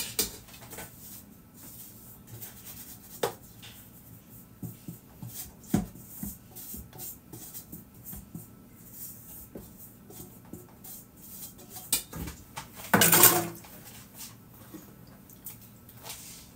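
Scattered light knocks and clicks of a steel stand-mixer bowl, its tilting head and kitchen utensils being handled, with one louder clatter lasting about half a second about thirteen seconds in.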